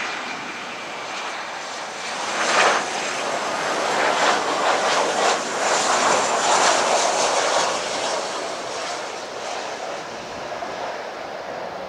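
Boeing 737-800's CFM56-7B jet engines on final approach: a steady rushing jet noise that swells as the airliner passes low overhead, is loudest from about two to eight seconds in, then fades as it flies on toward the runway.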